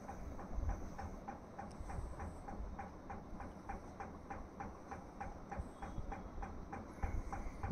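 Steady, evenly spaced ticking, about three ticks a second, over a low rumble.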